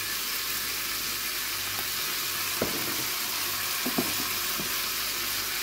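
Diced potatoes and onions sizzling steadily in a stainless steel pot, with a few light taps about two and a half and four seconds in.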